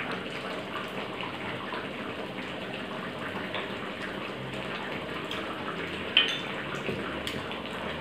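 Chicken curry simmering in a wok, a steady bubbling and popping. One short, sharper clink about six seconds in.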